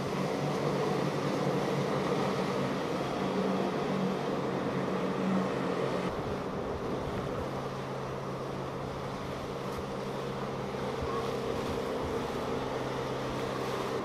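Outboard motors of boats running at speed, a steady engine drone over the rush of wake water and wind; the engine note shifts about six seconds in.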